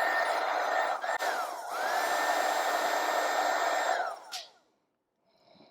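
Heat gun blowing hot air with a steady motor whine, shrinking heat-shrink tubing over a spliced power-cord wire. A little over a second in it is briefly cut off, its whine dropping, then it comes back up to speed. About four seconds in it is switched off and its whine falls away as it winds down.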